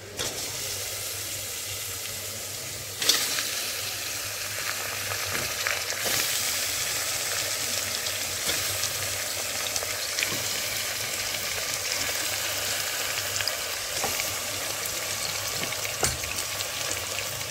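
Raw chicken pieces sizzling as they go into hot oil and browned onions in a pressure cooker. The sizzle steps up right at the start and again about three seconds in as more pieces drop in, with a few soft knocks along the way.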